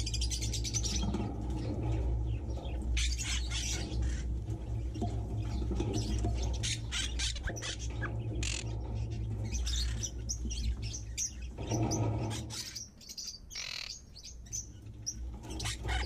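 A flock of budgerigars and other small aviary birds chirping and chattering in rapid short calls. A steady low rumble runs underneath and briefly drops away near the end.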